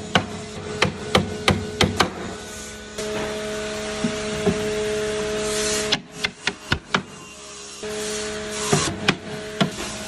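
Hammer driving nails into the wooden planks of a box, in clusters of sharp, quick strikes: several in the first two seconds, a few lighter ones past the middle, and more near the end. A steady hum runs underneath in stretches.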